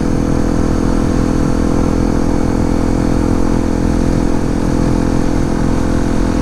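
2018 Honda CRF250L's single-cylinder four-stroke engine running at a steady pitch while the bike is ridden.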